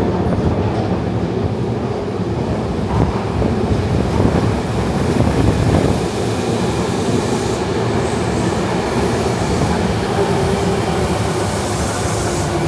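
A train running through the station: a loud, steady rumble of wheels on rails, with a faint whine that falls slightly in pitch near the end.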